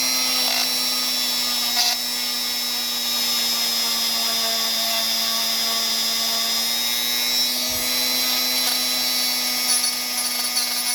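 Small high-speed rotary tool running steadily with a constant whine, polishing a corroded battery contact; its pitch sags slightly partway through, as if under load.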